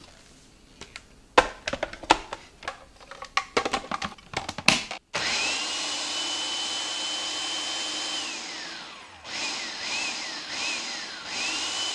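Food processor blending a liquid chili-and-broth mixture, after sharp clicks and knocks as the bowl and lid are fitted. Its motor runs steadily with a high whine for about three seconds and winds down with falling pitch. It is then pulsed four times, each pulse rising and falling.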